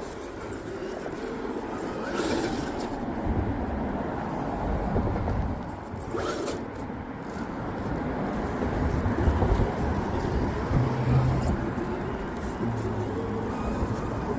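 Electric motor and geared drivetrain of an RC rock crawler whirring on and off as it crawls over rough ground, with scratchy scrabbling of tyres and chassis on dirt and rock.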